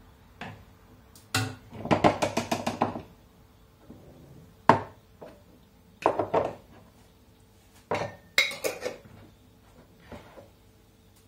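Kitchen clatter from filling jars for canning: a metal ladle scraping and knocking in a cooking pot, with a quick run of clinks about two seconds in. Single knocks follow as glass jars and a plastic funnel are moved and set down on the counter.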